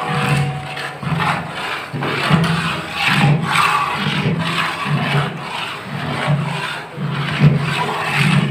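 Long metal ladle stirring and scraping around a large aluminium cooking pot, in regular strokes of about one a second.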